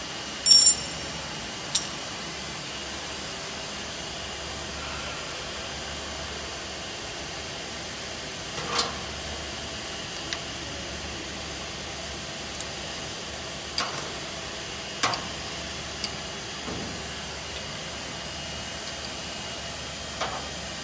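A steel pry bar levering the feeder frame of a laminating machine, giving about eight irregular metallic clinks and knocks against the machine's base and the concrete floor. The loudest, a ringing clink, comes about half a second in. A steady hiss of workshop noise runs underneath.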